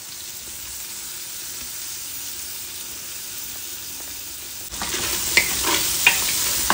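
Diced calabresa sausage, bacon and paio frying in a pot, a quiet steady sizzle at first. About two-thirds of the way in the sizzle suddenly gets louder as freshly pressed garlic goes in and a wooden spoon stirs, with a few short scrapes and clicks of the spoon against the pot.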